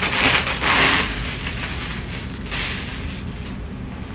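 Plastic packaging crinkling and rustling as a baby garment is pulled out and handled. It is loudest in the first second, with another burst about two and a half seconds in.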